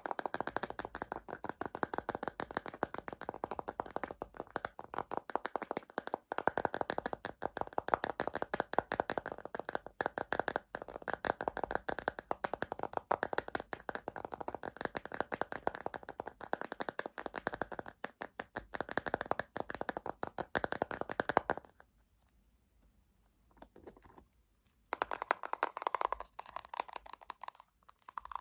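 Fast fingernail tapping on cosmetics containers, a dense run of small clicky taps. It stops for about three seconds near the end, then starts again.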